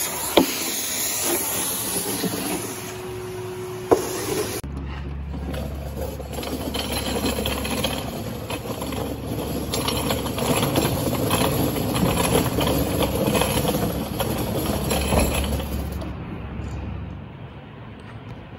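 Vacuum cleaner running with a steady hiss as its metal wand sucks debris off the metal floor of a Lancaster bomber's rear gun turret, with a few sharp clicks of grit going up the nozzle. About four and a half seconds in it cuts abruptly to a lower, steady hum with light knocking and clatter that fades near the end.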